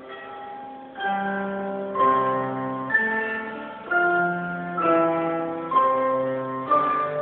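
Orchestra playing slow music: a run of chords struck about once a second from about a second in, each ringing on as the next one comes.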